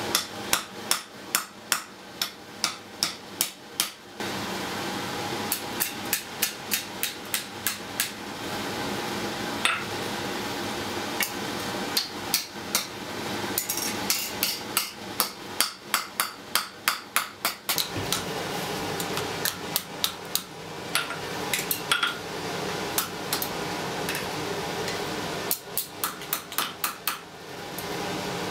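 Blacksmith's hand hammer striking a glowing iron rod on an anvil, forging it into shape: quick metal-on-metal blows, about three a second, in several bursts with short pauses between.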